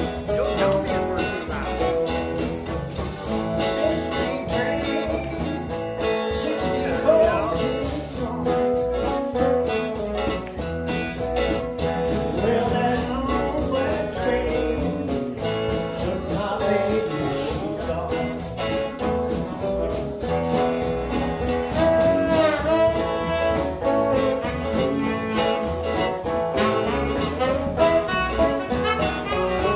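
Live blues band playing with a steady beat: two electric guitars, electric bass, drum kit and saxophone, with a man singing.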